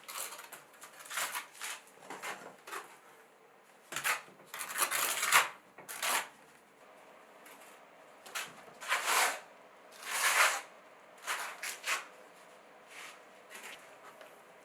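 A series of irregular short scraping or rustling noises, about a dozen, the longest lasting over a second about four to five seconds in.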